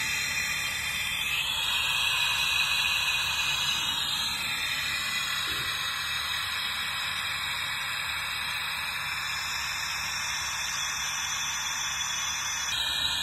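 Compressed-air-driven vacuum brake bleeder hissing steadily while it sucks brake fluid and air bubbles out of an ATV's front brake caliper through the open bleed screw and a clear hose, bleeding air from the brake line.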